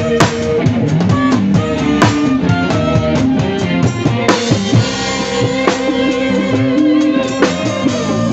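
Dangdut band playing live, with the drum kit prominent under bass, guitar and held melody lines.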